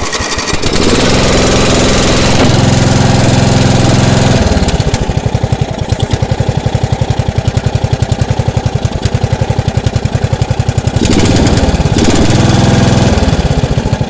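A mower's 10 hp petrol engine, just started on fast throttle, runs fast and steady, then drops about four seconds in to a slower, pulsing chug. It revs up again for about two seconds near the end and falls back.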